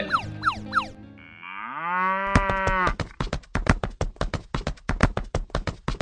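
A cow moos once, rising in pitch and then holding for about a second, after a few falling whistle-like glides at the start. A quick, even run of sharp clicks like hoofbeats follows, about six a second.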